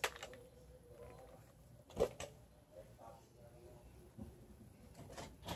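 Two sharp plastic clicks close together about two seconds in, from handling a toy dart blaster, in an otherwise quiet small room.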